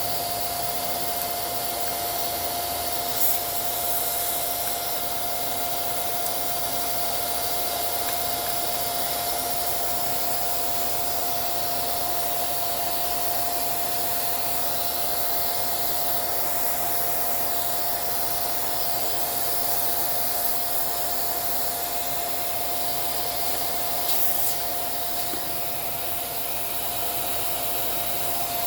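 Small vacuum cleaner running steadily with a constant whine, sucking dust out of a sewing machine, with a couple of light knocks.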